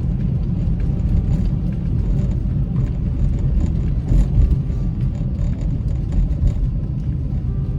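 Car cabin noise while driving: a steady low rumble of tyres on the road and the engine.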